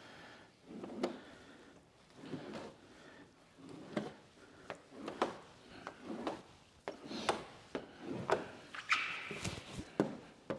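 Squeegee strokes rubbing over wet paint protection film on a car body panel, one short scrape roughly every second, with light clicks and a brief squeak near the end.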